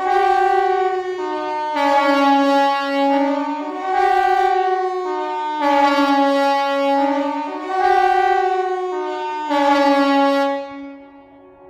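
Civil defence siren sounding a stepped tone, jumping between a few fixed pitches in a pattern that repeats about every four seconds, then dying away about ten and a half seconds in.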